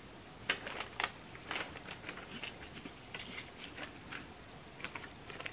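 Faint rustling of paper and packaging handled by hands, with scattered light clicks and crinkles.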